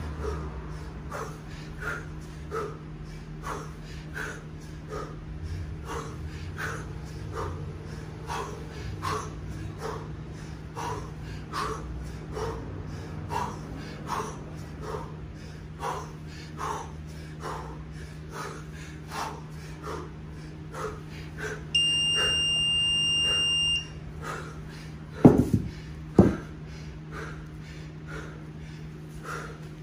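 A kettlebell lifter's hard, rhythmic breathing, a forceful breath a little more than once a second, over a steady low hum. Near the end an electronic beep sounds for about two seconds, then two heavy thuds follow about a second apart as the 20 kg kettlebell is dropped onto the turf.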